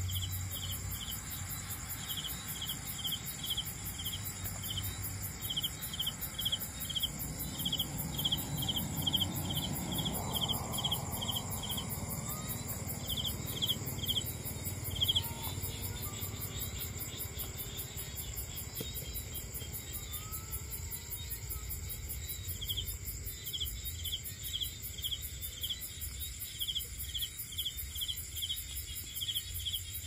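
Night insects calling: a cricket's short chirps repeat several times a second in runs with brief pauses, over a steady high-pitched insect drone.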